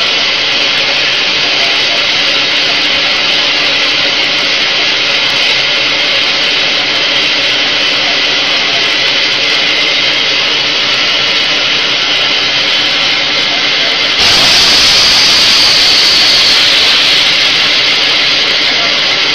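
HDPE extrusion blow-molding machine running with a steady mechanical hum holding several tones. About 14 seconds in a sudden loud hiss of compressed air starts, strongest for about three seconds, then eases off.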